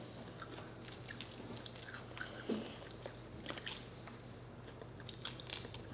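Quiet chewing of shrimp, with scattered small wet clicks and squishes as shrimp shells are peeled by hand.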